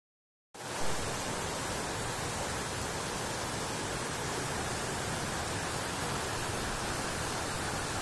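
Steady rushing of a fast-flowing mountain stream in spring spate, an even roar of white water over rocks, starting about half a second in.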